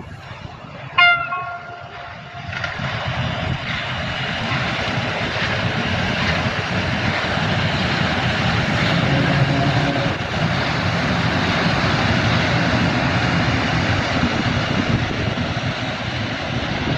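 A Polish electric locomotive's horn gives one short blast about a second in, followed by the steady rumble of electric locomotives rolling past close by, growing louder over the first few seconds.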